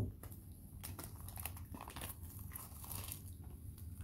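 Plastic shrink-wrap being torn and crinkled off a sealed trading-card box: irregular crackles and rustles, with a sharp snap right at the start.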